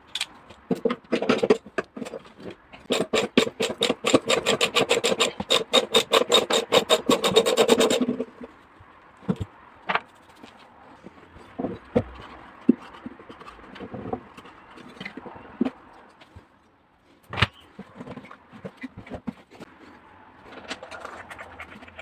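Hand-tool work on a washing machine while it is being taken apart to replace its drum bearings. A fast, even run of sharp clicks lasts about five seconds, and scattered knocks and scrapes come before and after it.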